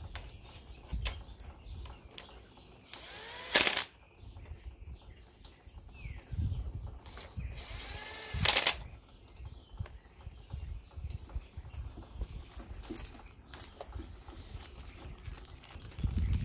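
Cordless electric screwdriver run in two short bursts, about three and eight seconds in, driving the screw at the brake lever pivot of a Honda CB750 front master cylinder. Knocks and clicks of handling between the bursts.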